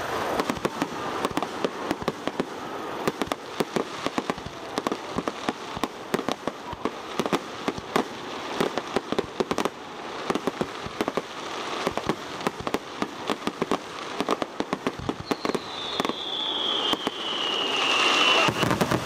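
Fireworks display: aerial shells bursting with rapid, dense crackling and popping reports throughout. A falling whistle sounds near the end, followed by a louder, deeper bang.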